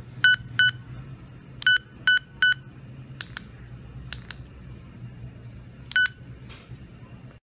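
Electronic voice-changer bow tie toy beeping as its buttons are pressed: six short, high beeps, two near the start, three more about two seconds in and one near the end, with two pairs of plain button clicks between them, over a low steady hum.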